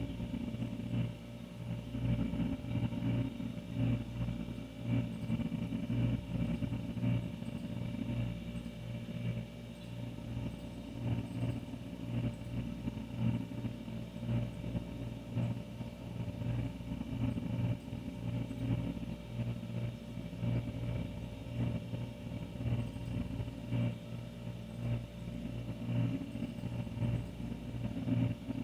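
Older refrigerator running with a steady low hum, its level wavering slightly.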